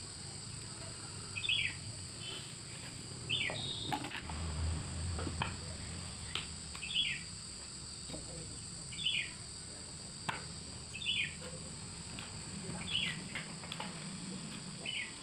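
A bird repeats a short falling call about every two seconds over a steady high-pitched insect drone. A few light clicks come from metal engine parts being handled.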